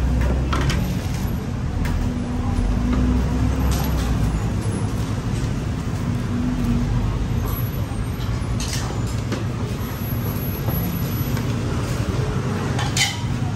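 Road traffic: a steady low rumble of passing vehicles and engines, with a couple of short sharp clicks partway through and near the end.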